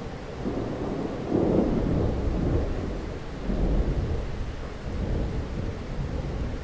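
A deep, noisy rumble that swells about a second and a half in and again near four seconds, like rolling thunder.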